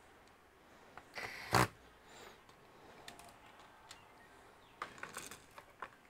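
Gloved hands handling tools and parts on a workbench. A brief, loud scrape comes about a second in, then a run of light clicks and taps near the end.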